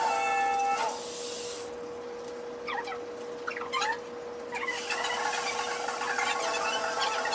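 Fast-forwarded room sound from a busy art class: voices and activity sped up into high, squeaky chirps and squeals. It grows into a dense chatter about two-thirds of the way in, over a steady hum.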